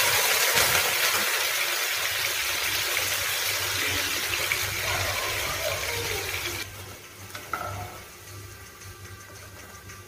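Vegetable pieces sizzling loudly in hot oil in a kadai, just after being dropped in. The sizzle eases slowly, then falls away sharply to a much quieter level about seven seconds in.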